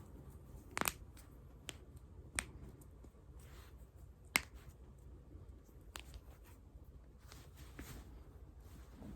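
Human joints cracking: a handful of sharp single pops spaced one to two seconds apart, the loudest a little over four seconds in.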